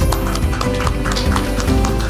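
Background music with a steady percussive beat and sustained notes.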